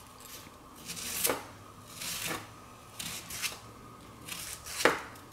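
Kitchen knife slicing down through a red onion, each cut ending in a short knock on the cutting board, about once a second; the last cut, near the end, is the loudest.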